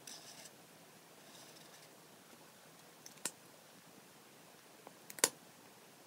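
Chisel nib of a TouchFive alcohol marker scratching across paper in short strokes, followed by sharp plastic clicks as the marker is handled: one about three seconds in and a louder cluster about five seconds in.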